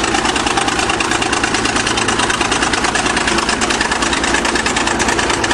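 Diesel engine of a 1953 International TD20 crawler bulldozer running steadily with a fast, even beat.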